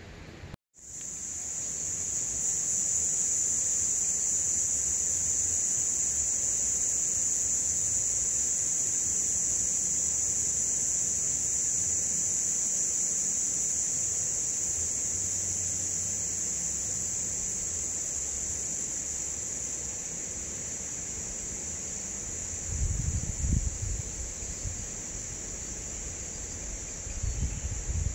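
Steady high-pitched chorus of insects, a continuous shrill drone that starts suddenly about half a second in and eases slightly later on. A few low rumbles come in about two thirds of the way through and again near the end.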